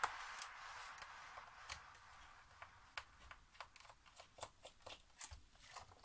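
Faint, irregular small clicks and ticks of a hand screwdriver turning a screw in the plastic underside of an iRobot Roomba 580 robot vacuum, with plastic parts being handled.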